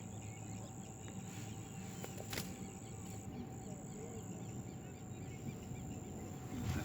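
Faint outdoor background noise with a steady high-pitched tone and one sharp click about two and a half seconds in.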